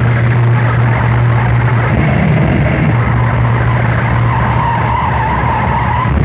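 Harsh noise music: a loud, dense wall of distorted noise over a steady low hum, with a wavering high squeal coming in about four seconds in and dropping out near the end.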